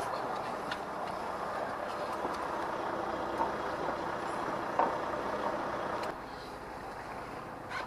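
Steady running noise of a fishing boat's engine, dropping noticeably in level about six seconds in, with a few light knocks.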